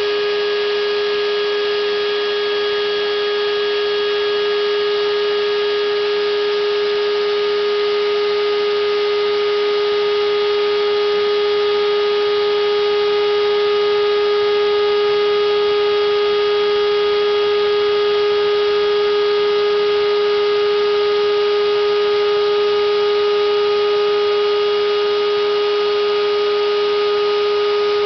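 CNC router's high-speed spindle motor running at a constant speed: a loud, steady whine over a steady hiss, its pitch never changing.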